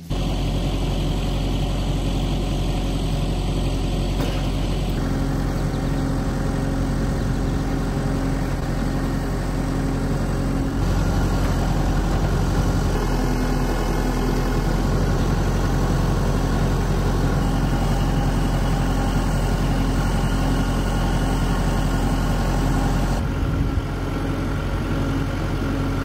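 Kubota tractor's diesel engine running steadily at a constant speed while its loader holds a log.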